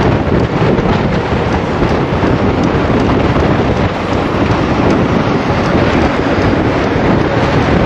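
Wind rushing over the microphone of a handlebar-mounted camera on a road bike moving at speed: a loud, steady rumble.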